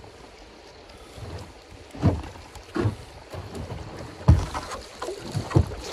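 A canoe in very shallow water, with about six dull knocks and thuds against the hull at uneven intervals from about two seconds in, over a light hiss of moving water and wind.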